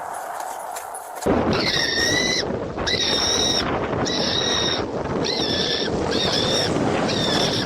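Police siren sounding in short repeated blasts over loud, rough rumbling noise, which starts suddenly about a second in.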